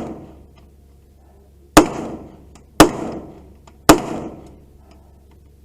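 Three gunshots about a second apart, each a sharp crack with a short echoing tail, while the tail of an earlier shot fades at the start.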